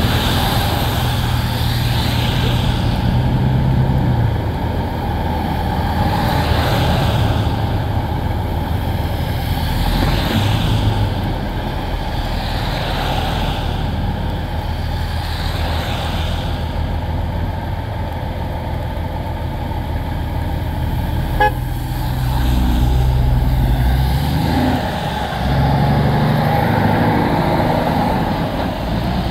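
Road traffic passing on a wet road in the rain: tyres hiss through the water as vehicles go by one after another every few seconds, over a steady low hum of running engines. A single sharp click about two-thirds of the way through.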